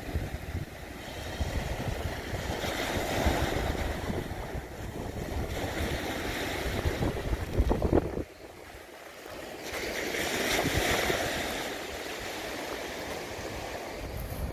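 Small waves breaking and washing up a shingle beach, the surf swelling and easing in slow surges. Wind rumbles on the microphone for the first half and drops out about eight seconds in.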